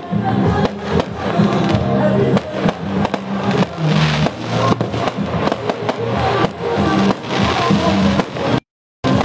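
Fireworks going off in rapid bangs and crackling over music with a steady bass line. The sound cuts out completely for a moment near the end.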